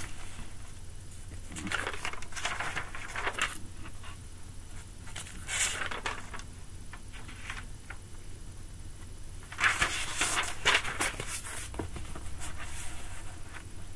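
Intermittent rustling and scraping handling noises in several short clusters, the loudest about ten seconds in, over a faint steady low hum.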